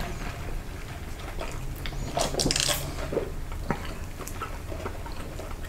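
Table eating sounds: a fork clicking and scraping in a plastic takeout bowl of mashed potatoes, with scattered small knocks of food containers.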